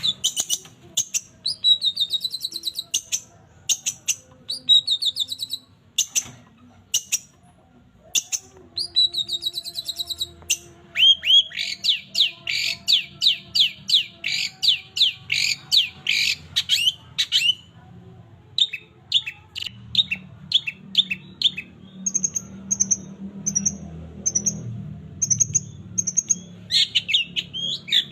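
Long-tailed shrike (cendet) singing a varied mimicking song: repeated scratchy phrases with sharp clicks, then a fast run of sweeping notes about halfway, and a string of short high chirps near the end.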